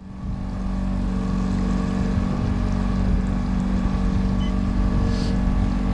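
Evinrude outboard motor running steadily at trolling speed, a constant low drone with no change in pitch.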